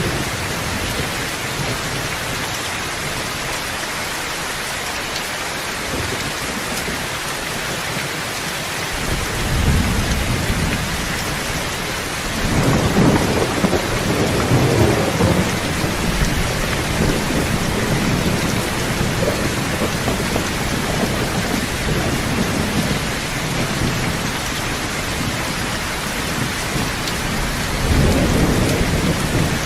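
Steady rain with rolling thunder: a low rumble swells in about ten seconds in, is strongest a few seconds later, and comes back near the end.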